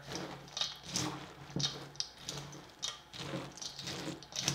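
Spatula stirring chocolate-coated Chex cereal through powdered sugar in a stainless steel bowl: a rhythmic scraping, crunchy rustle of about two strokes a second.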